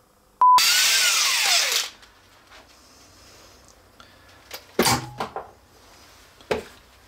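A short beep, then a power tool runs in one loud burst of about a second and a half, a whine falling in pitch through it, and cuts off abruptly. A few sharp knocks follow later.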